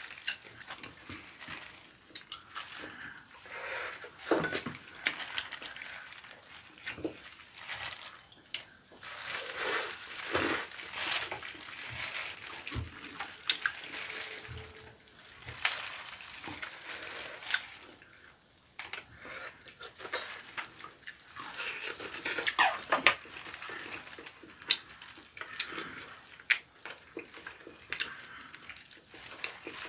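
Wet chewing and smacking of people eating tender boiled chicken, meat pulled apart by hand, with scattered light clicks.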